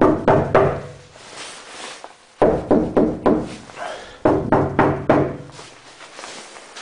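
Volkswagen Beetle steel floorpan being knocked on in three quick runs of four or five strikes, each strike followed by a short ring.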